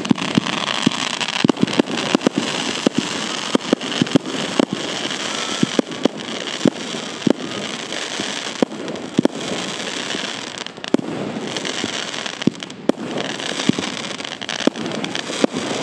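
Heron PSP 1-22 fireworks battery, a 20-shot calibre 30 cake, firing its shots in quick succession: many sharp bangs over a continuous crackling hiss.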